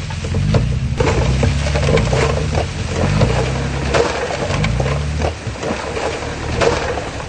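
Crawler bulldozer's diesel engine working under changing load, its pitch stepping up and down, with repeated sharp metallic clanks and squeaks from the tracks and blade.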